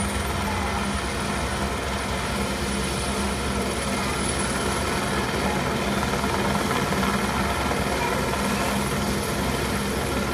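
Helicopter on the ground with its engine and rotor running, a steady unbroken hum.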